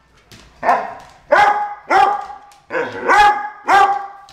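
A springer spaniel gives about five short pitched barks, each sliding up into a held note, under a second apart, "talking" back in answer to its owner's prompting.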